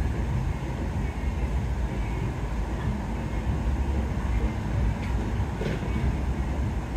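Steady low rumble of outdoor background noise in an open shopping plaza.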